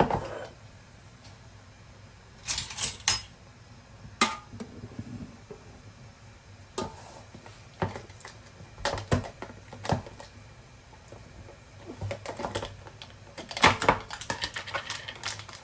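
Scattered clicks, knocks and light clatter of dishes and utensils being handled. The busiest clusters come about two and a half seconds in and again near the end.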